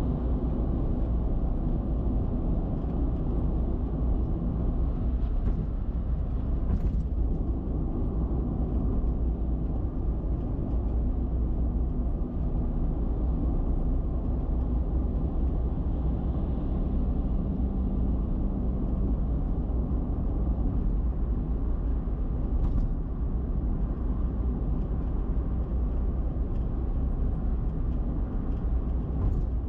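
Steady road, tyre and engine noise of a car cruising on an expressway at highway speed, even and unbroken, with a couple of faint ticks.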